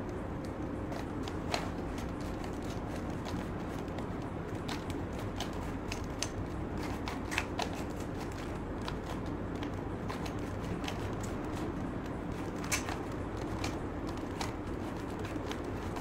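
Plastic 3x3 Rubik's cube being twisted by hand: irregular clicks and clacks as its layers turn, over a steady background hiss.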